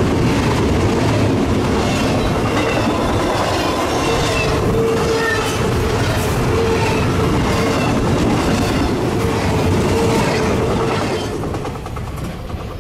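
Double-stack intermodal container train passing at close range: a steady rumble of rolling wheels with repeated clacks over the rail joints and a thin steady whine. The noise falls away near the end as the last car goes by.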